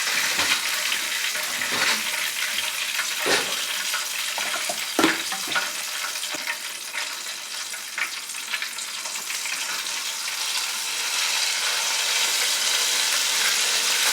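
Konjac sizzling in a frying pan while being stirred with a spatula, a steady hiss with a few sharp knocks of the spatula against the pan in the first five seconds. The sound cuts off suddenly at the end.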